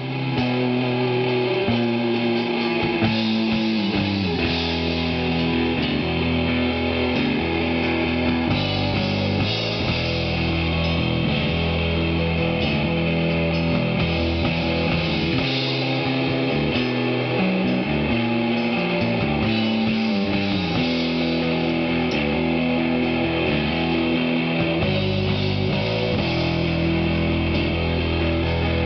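Rock music with electric guitar, bass and drums, playing loudly and without a break, the low notes changing every second or so.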